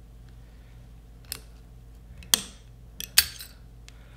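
Snap-ring pliers clicking and clinking against metal inside a rear brake caliper's piston bore as they grip and pull out the snap ring that holds the spring and washers. Four sharp clicks, the loudest about two and three seconds in.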